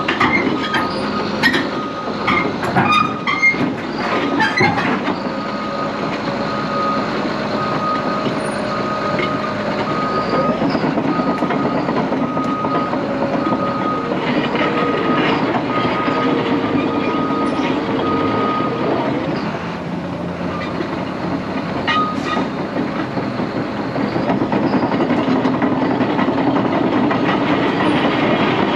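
Caterpillar D6 XE diesel-electric dozer moving on its steel tracks: the tracks clank and squeal over the engine's steady running. A backup alarm beeps steadily until about 22 seconds in. Sharp metal clanks come in the first few seconds.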